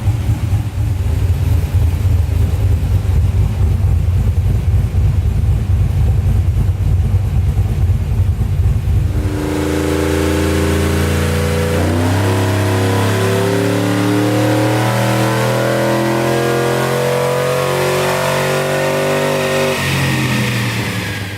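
A V8 engine rumbling with a choppy, uneven beat. About nine and a half seconds in it gives way to sustained tones at several pitches that change in steps, which stop shortly before the end.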